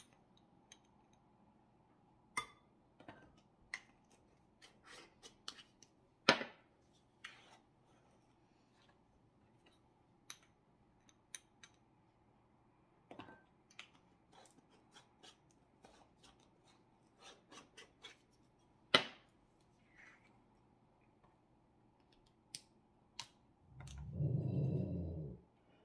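Scattered light clicks and taps of spice jars and measuring spoons as spices are measured into a bowl. Two sharper knocks come about 6 and 19 seconds in, and a brief low rumble comes near the end.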